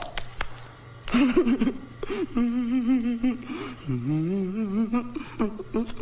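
A person's voice humming with a quick, wavering pitch; it dips and climbs back up about two-thirds of the way through.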